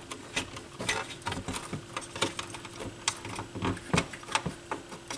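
Irregular light clicks and taps of small parts being handled and fitted while working inside a turntable.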